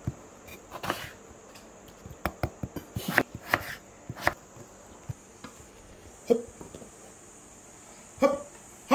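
Kitchen knife cutting through a raw potato and knocking on a wooden chopping board: about a dozen short, irregular knocks in the first half, then a couple of louder knocks near the end.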